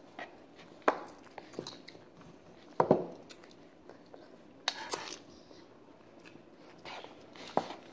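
Children eating instant noodles: quiet chewing and mouth sounds, with a few short clicks and knocks scattered through. The loudest comes about three seconds in.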